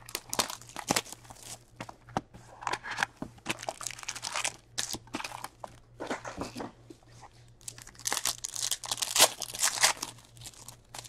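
Rustling and clicking as a cardboard box of 2020-21 Upper Deck SPx hockey card packs is opened and the packs are handled. Near the end a plastic foil pack wrapper crinkles loudly and is torn open.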